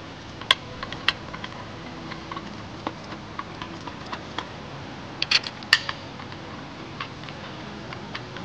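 Scattered light clicks and clinks of hand tools and small metal parts being handled during an oil pan install. The loudest come about half a second and a second in, with a quick cluster of several about five seconds in.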